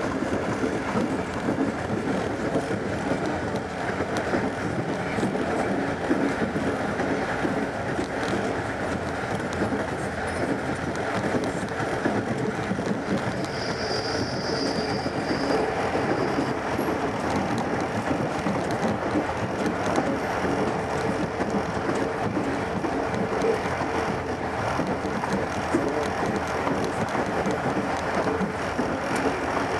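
A train running along the track with a steady rumble and a constant low hum. A brief high-pitched whine sounds about halfway through.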